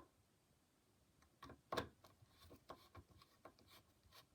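Faint scattered clicks and light rubbing, like tools and small parts being handled.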